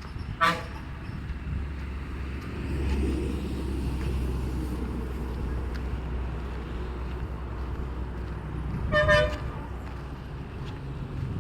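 Vehicle horn giving two short toots, one near the start and one about nine seconds in, over a steady low rumble of traffic.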